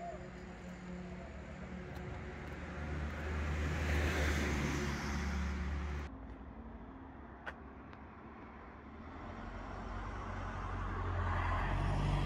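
Road traffic: a car passing on the street, its sound swelling and then cut off suddenly about six seconds in, then another car's sound building up near the end.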